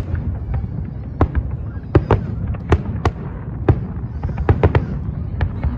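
Fireworks display: an irregular run of sharp bangs from bursting shells, about a dozen in a few seconds, over a constant low rumble.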